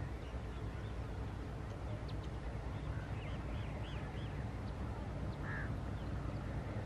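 Steady low rumble of an approaching diesel locomotive's engine, with birds calling over it: a quick run of short chirps about three seconds in.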